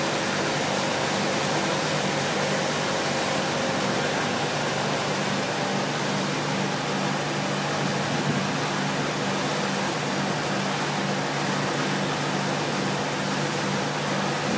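Steady hum of running machinery with a few low, even tones beneath a constant rushing noise, unchanging throughout.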